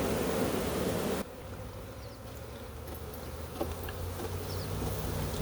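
A honey bee swarm buzzing, many bees at once, as they crawl from the frame into the hive box. A loud rushing noise for the first second stops abruptly, leaving a quieter, steady hum of the bees.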